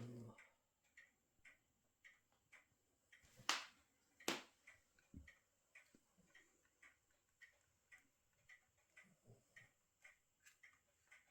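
Faint, regular ticking, about two ticks a second, with two sharper, louder clicks a little under a second apart near the middle.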